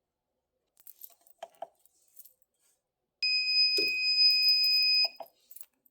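Heat press timer alarm: one steady, high-pitched beep of about two seconds, signalling that the set pressing time is up. A knock sounds partway through the beep, and a few light clicks come before and after it.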